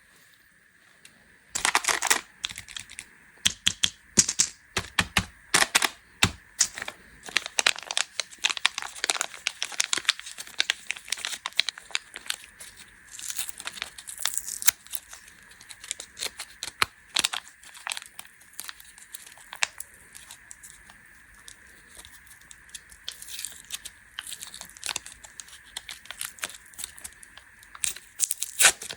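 Plastic candy wrappers being torn open and crinkled by hand: a dense run of irregular sharp crackles and rustles starting about a second and a half in.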